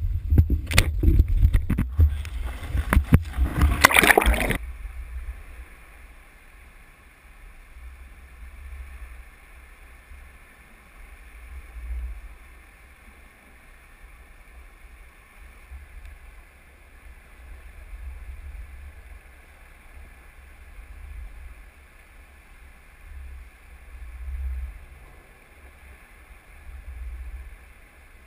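Knocks and handling of a GoPro camera in its waterproof housing on a boat deck, cut off about four and a half seconds in as it goes into the sea. After that, a muffled low underwater rumble through the housing, swelling and fading every few seconds as the camera sinks.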